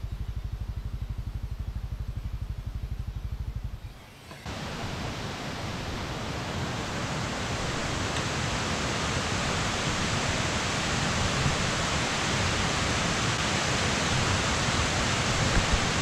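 Motorcycle engine idling with an even low pulse, then switched off about four seconds in. After that, the steady rush of a stream's rapids, growing slowly louder.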